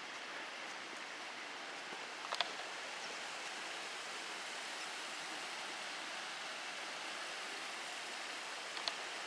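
Small forest stream babbling steadily over stones. Two short sharp ticks stand out, one about two seconds in and one near the end.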